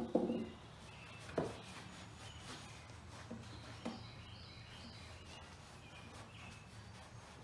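A few knocks from handling a cast steel anvil while a cloth wipes oil over it: the loudest right at the start, weaker ones at about a second and a half and about four seconds. Birds chirp in the background through the middle.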